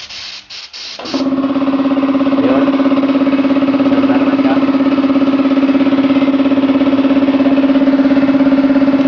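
A spray gun blowing short rapid bursts of air as its trigger is pulled, bleeding down the tank. About a second in, the electric piston air compressor's motor kicks in, the sign that tank pressure has dropped enough, and runs with a loud steady hum until it stops right at the end as it is unplugged.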